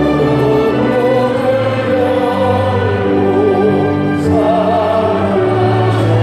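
Church music: singing with instrumental accompaniment, a melody with wide vibrato over held chords and bass notes.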